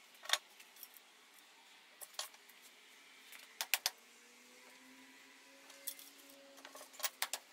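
Light metallic clinks and clicks as a steel swivel caster plate and a hand tool are handled against an iron bar, in small clusters: three quick clinks a little before the four-second mark and a rapid run of them near the end.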